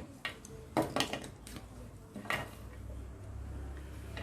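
Small hard plastic building-block pieces clicking and clattering as they are handled and snapped together: a handful of sharp, irregularly spaced clicks.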